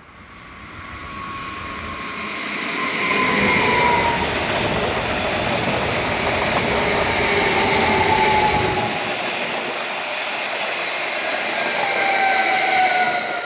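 A DB Regio BR 422 electric multiple unit passes close by on the rails. The rumble of its wheels on the track builds over the first few seconds and stays loud. Thin whining tones from its electric drive slowly fall in pitch.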